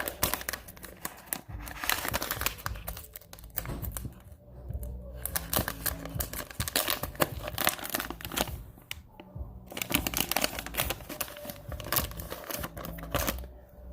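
The wrapper of a sealed sports-card mystery pack being torn and crinkled open by hand, a packet that is tough to open. The crackling is nearly continuous, with two short lulls about a third and two thirds of the way through.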